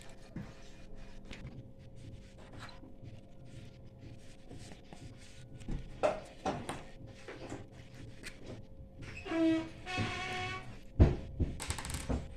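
Clicks, scrapes and knocks of hands and tools working the high-voltage fuse and its holder out of a microwave oven. Two short pitched sounds come about nine to ten seconds in, and the loudest knock comes about eleven seconds in.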